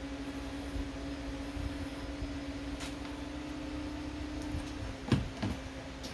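Small 12 V submersible shower pump motor humming steadily, its pitch dropping slightly about five seconds in. This is followed by two short knocks as the shower hose and plug are handled.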